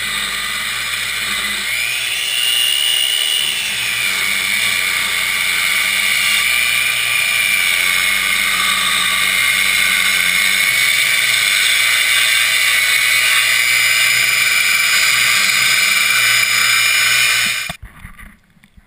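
Handheld circular saw ripping lengthwise along a 2x12 pine board: a steady high motor whine, its pitch rising briefly about two seconds in and then settling back. The sound cuts off suddenly near the end.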